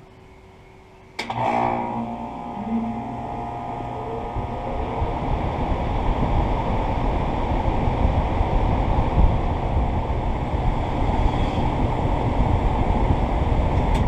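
Heil Quiet Comfort central air conditioner outdoor unit starting up: about a second in a sharp click, then the compressor comes on with a hum and the condenser fan spins up, its air noise rising over several seconds to a steady run.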